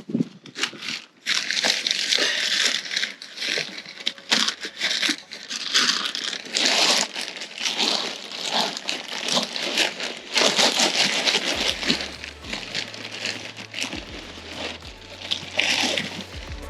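Compost being handled and worked into a planting hole: a plastic bag crinkling, with irregular scraping and crunching of soil.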